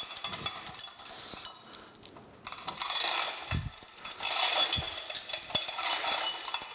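Hand chain of a chain hoist rattling and clinking as it is pulled hand over hand to lift the planer table off the base. The rattle eases off for about a second around the middle, then picks up again, with a couple of dull low thumps.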